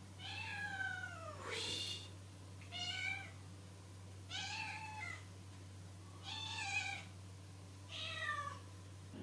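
Domestic cat meowing repeatedly: about six meows, a second or two apart, each a short arched or falling call.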